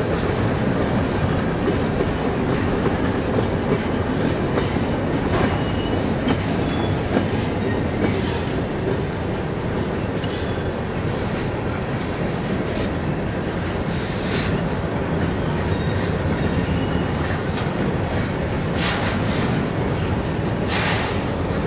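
Freight train's steel-wheeled covered hoppers and tank cars rolling past close by: a steady rumble of wheels on rail. Short high-pitched wheel screeches come a few times, the strongest near the end.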